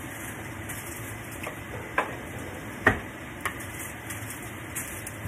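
Hushpuppies deep-frying in oil in a cast iron skillet, a steady sizzle, with a metal spoon clinking against the pan a few times as they are turned, loudest about two and three seconds in.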